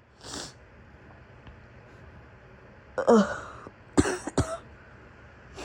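A woman with a raw, sick throat coughing. After a quick intake of breath there is a harsh voiced cough about three seconds in. Two sharp coughs follow close together about a second later.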